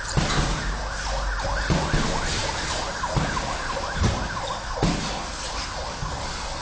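Boxing punches landing on a trainer's pads: about six sharp thuds spread through, with many short squeaks from shoes on the ring canvas.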